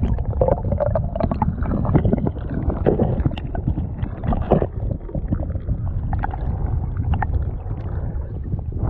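Fast creek current heard from under water: a steady, muffled rumble and rush, with scattered clicks and knocks of pebbles on the streambed.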